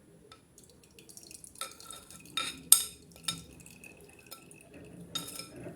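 A strainer and glass clinking against each other while turnip juice is strained into the glass, with several sharp clinks, the loudest near the middle, and a brief faint ring.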